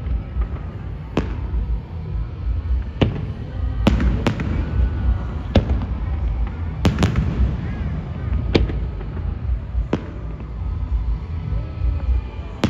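Aerial fireworks bursting: about nine sharp bangs at irregular intervals of roughly one to two seconds, over a continuous low rumble of further explosions.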